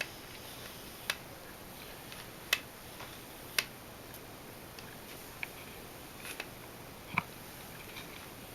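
Nikon 24-70mm f/2.8G zoom lens being worked by hand after its zoom was cleaned and lubricated, giving a series of sharp single clicks roughly once a second.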